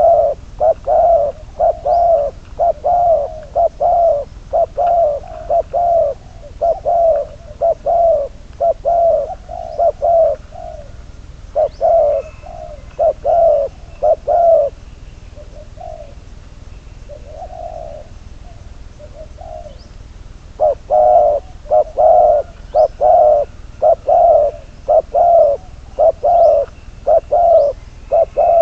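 Spotted dove cooing loudly in quick runs of about two coos a second. The runs break off about halfway through into a few softer, scattered coos, then pick up again about two-thirds of the way in. Faint chirps of small birds sound high above.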